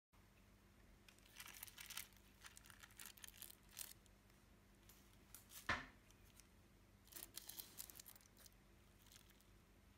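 Faint crinkling of a soft plastic bag of slime ingredient being handled, with scissors cutting at its corner. The loudest sound is one sharp snip a little past halfway.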